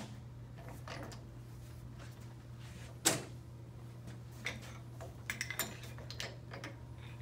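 Metal parts handled on a workbench: a gear puller being worked loose on a CVT variator pulley shaft, with one sharp metallic knock about three seconds in and a few light clicks and rattles afterwards, over a low steady hum.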